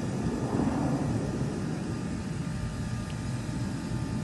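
Jet aircraft flying past in formation at a distance, a steady low rumble with no breaks.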